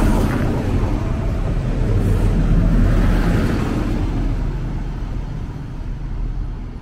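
DB class 643 (Bombardier Talent) diesel multiple unit pulling in and passing close by: a deep engine and wheel rumble that eases off after about four seconds as the train slows along the platform.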